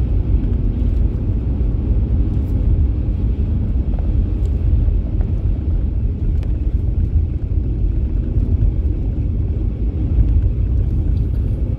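Car driving at road speed: a steady low rumble of engine and tyre noise, with a few faint ticks.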